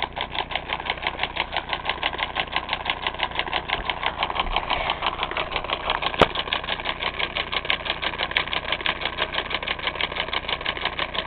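Homemade solenoid engine running: a cash-register solenoid pulls its plunger in on each stroke, switched on and off by a homemade brass contact, making a rapid, even clacking. One sharp click about six seconds in.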